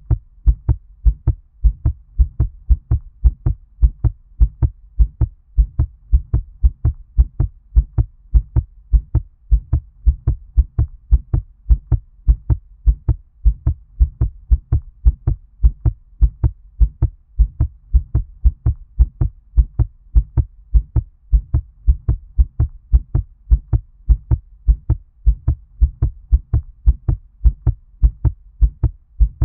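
A fast heartbeat: quick, regular low thuds that repeat evenly. The beat sounds muffled, as if heard under water.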